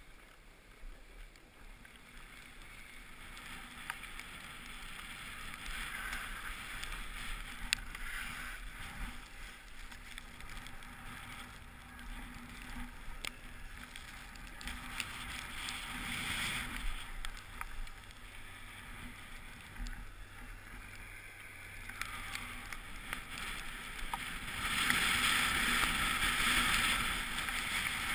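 Hiss and scrape of a board or skis sliding over packed snow on a descent, rising and falling in waves with the turns and loudest near the end.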